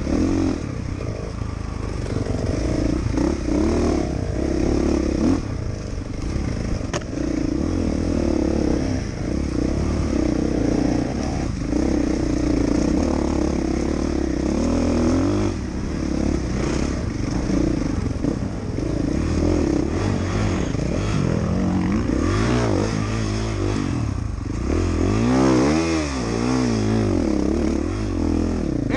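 Dirt bike engine running under load while riding a trail. The throttle opens and closes so the engine note rises and falls, with several quick rev swings near the end.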